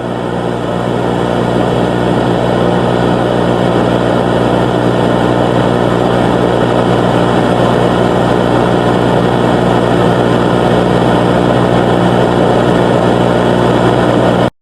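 Loud, harsh, steady roaring noise cutting in after the alert voice breaks off mid-sentence. It swells over the first couple of seconds, holds level, then cuts off abruptly near the end.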